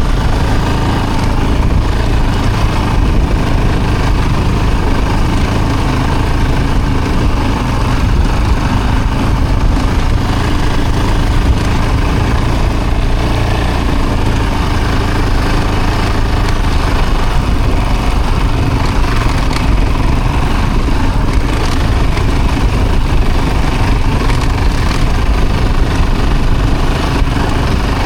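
A vehicle's engine running steadily while driving, heard as an even, unbroken rumble.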